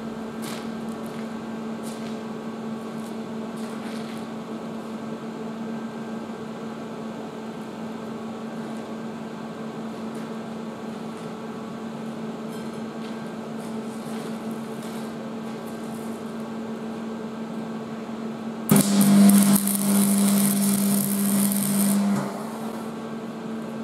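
Electric arc welding on a steel frame: about three-quarters of the way in, the arc strikes and runs for about three and a half seconds with a loud crackling hiss, then cuts off. A steady electrical hum, from the welding machine, runs underneath throughout.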